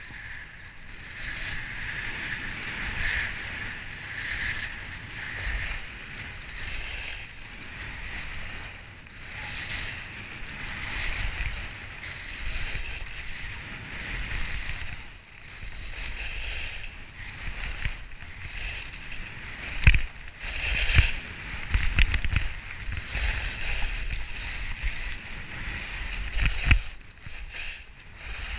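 Skis hissing and scraping over packed snow during a downhill run, with wind buffeting the microphone. A few sharp knocks in the last third.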